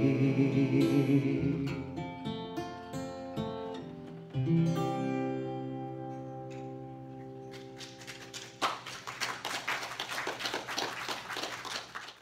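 Acoustic guitar ending a ballad: a held sung note fades about a second and a half in, then a few plucked notes and a final chord about four seconds in that rings and dies away. About eight and a half seconds in, applause breaks out and runs until the sound cuts off.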